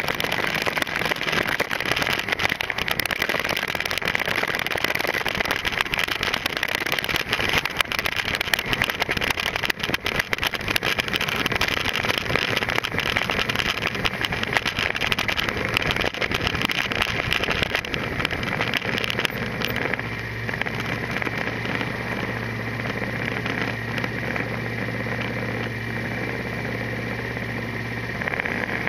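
Motorcycle riding along a road, its engine buried under heavy wind buffeting on the camera microphone. About two-thirds of the way through it slows and settles into a steady low idle.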